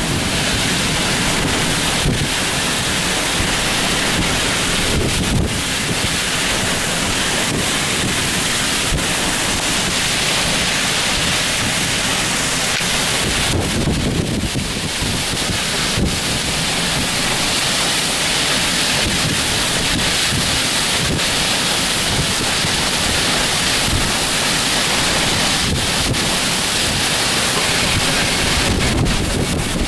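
Severe thunderstorm winds blowing hard and steadily, buffeting the microphone.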